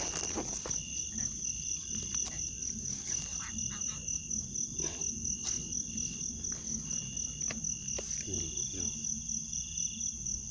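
Crickets or similar insects trilling steadily: one high, fast-pulsing trill keeps on throughout, while a second, lower trill starts and stops every second or so. A few faint knocks are heard.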